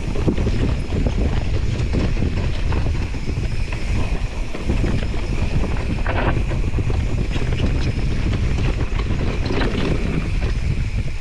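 Wind buffeting the microphone of a mountain bike riding down a rough dirt trail, over a steady low rumble, with frequent short clicks and knocks from the bike jolting over bumps.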